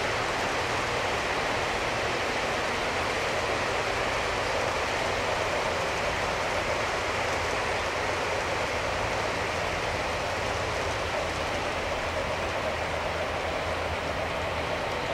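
G scale model freight train rolling steadily along its track: a long string of cars giving an even, continuous rumble of wheels on rails.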